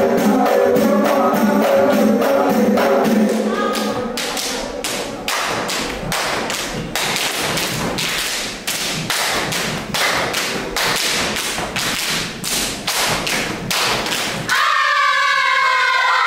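Ratoh jaroe dance percussion: a group chant over rhythmic claps, then about four seconds in the singing stops and a fast, dense run of hand claps and body slaps carries on alone. It cuts off abruptly near the end, and an audience breaks into cheering and screams.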